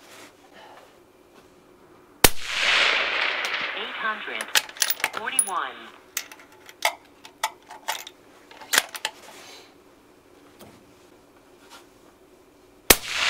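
Two rifle shots from a Tikka T3x varmint bolt-action, about ten seconds apart, each a sharp crack followed by a few seconds of echo across the range. A few sharp clicks come between the shots.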